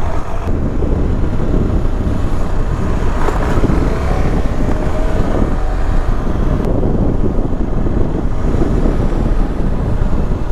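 Motorcycle on the move: a KTM 390 Adventure's single-cylinder engine running under steady wind rush on the microphone.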